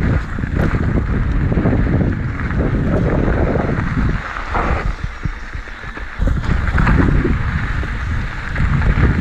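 A mountain bike riding over a rough dirt trail, with wind buffeting the camera microphone and tyres and frame rattling over bumps. It eases for a moment about four seconds in and picks up again about two seconds later.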